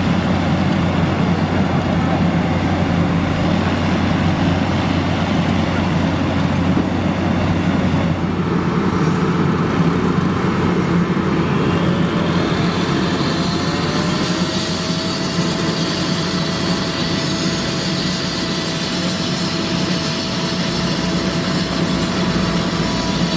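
Diesel-powered road-building machinery running steadily, a continuous drone of engines. A steady whine joins it a little past halfway through.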